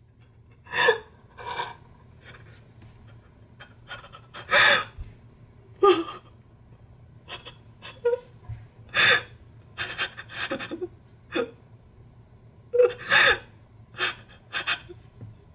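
A young man crying out of happiness: irregular sobbing gasps and shaky breaths come in short bursts, the loudest about a second in, near five seconds, around nine seconds and again near thirteen seconds.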